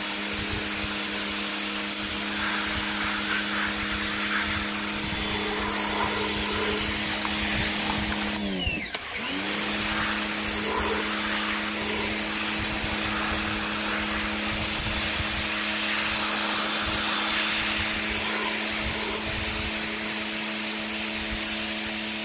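Pressure washer running steadily, its motor hum under the hiss of the water jet hitting a plastic shotgun stock as it strips the paint. About eight and a half seconds in the motor winds down and picks back up within a second.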